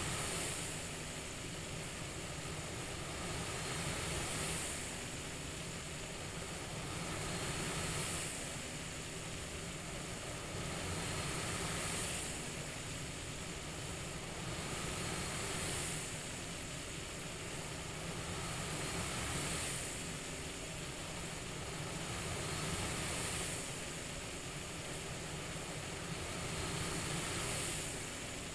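CPAP-style white noise: a steady airflow hiss that swells and eases in a slow, regular breathing rhythm, about once every four seconds.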